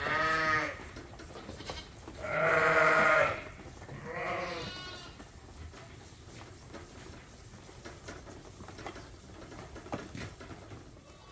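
Lambs bleating: three calls in the first five seconds, the second one loudest and longest, the third fainter and higher. Then only a low background with a few soft knocks.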